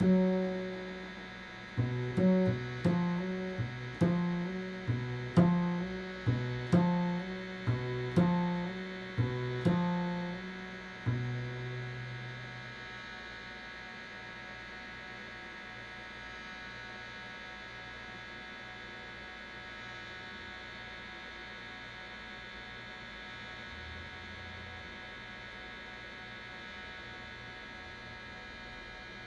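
Improvised music: an instrument plays a slow run of single notes, about two a second, each struck sharply and fading, ending around ten seconds in on a longer low note. After that only a steady electrical hum remains.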